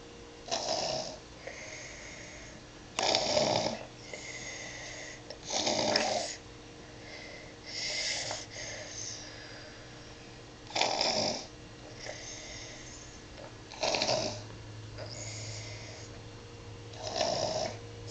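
A sleeping toddler snoring: seven loud snores about every three seconds, with softer breaths between them.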